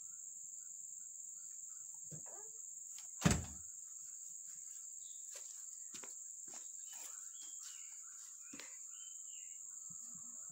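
Steady high-pitched chirring of insects in the surrounding grass and trees, with one loud thump a little over three seconds in and a few light knocks and rustles after it.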